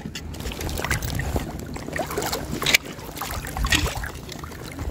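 Shallow seawater sloshing and splashing as a wader moves through it and jabs crab tongs into the water in a missed grab at a blue crab, with one sharp splash a little before the middle; a low wind rumble on the microphone underneath.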